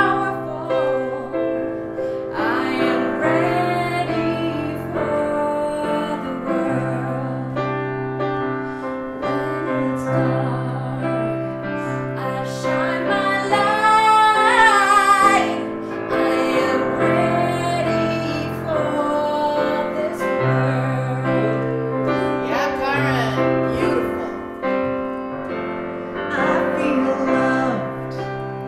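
A woman singing a solo verse of an affirmation song into a microphone, with held chords on a Yamaha digital keyboard underneath. Her voice climbs to a higher, louder held note with vibrato about halfway through.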